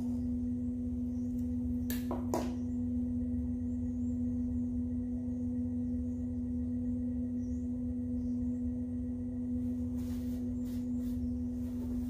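Electric pottery wheel spinning, its motor giving a steady hum over a low rumble. Two brief clicks about two seconds in, and a few short rustling noises near the end.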